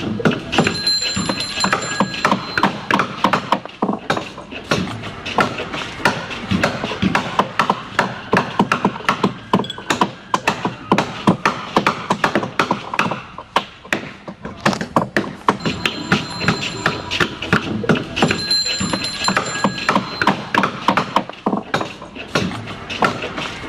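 Hammering on wood in wooden-boat building: many sharp, irregular knocks, several a second, with short ringing tones in places.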